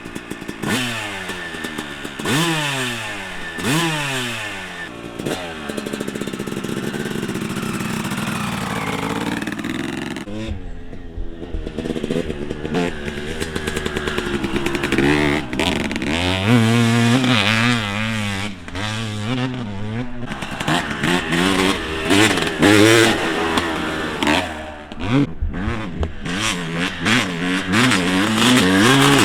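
Suzuki RM250's single-cylinder two-stroke engine being ridden hard, its pitch climbing in quick repeated sweeps as it shifts up through the gears. About ten seconds in it drops off briefly, then keeps rising and falling with the throttle.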